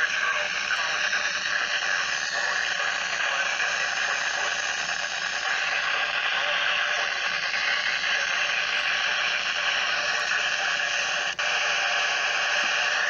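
Steady radio static hiss on a weather radio channel, with faint wavering traces of a voice barely showing through. The hiss drops out briefly about eleven seconds in.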